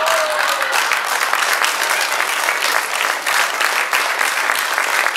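Theatre audience applauding steadily: many hands clapping at once in a dense, even patter.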